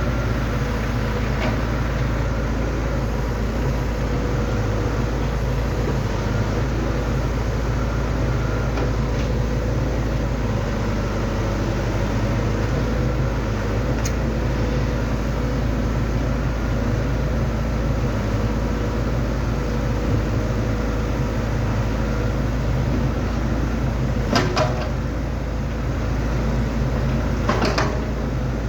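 Excavator's diesel engine running steadily with a steady whine over it, and two sharp metallic clanks near the end.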